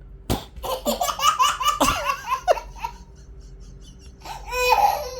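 A small child laughing: a burst of quick, breathy laughs that runs for about two seconds, then another short laughing outburst near the end.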